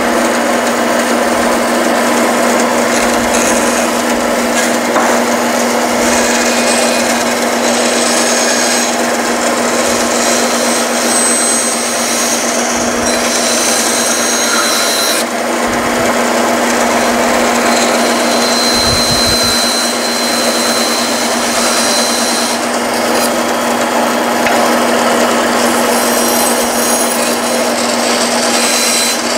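Bandsaw running and cutting through a thick wooden spoon blank as the underside of the bowl is sawn to shape. A steady motor hum sits under the sound of the blade in the wood.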